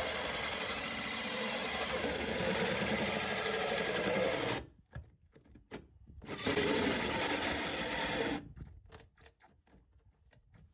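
Cordless drill driving a 5.5-inch hole saw through the fibreglass cockpit coaming, cutting steadily. It stops about four and a half seconds in, cuts again for about two seconds, then stops.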